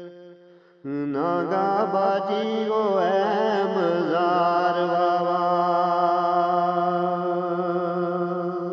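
A man singing a Gojri bait (devotional verse) in a slow chanting style. A held note fades out, then about a second in he starts a new line with wavering, ornamented runs. Near the end these settle into one long held note.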